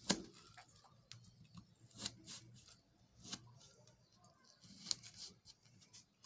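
Sharp kitchen knife cutting a slab of besan barfi, the blade knocking on the table in scattered light taps, the sharpest just at the start.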